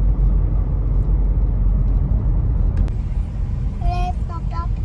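Steady low rumble of a car driving, with a child's voice starting about four seconds in.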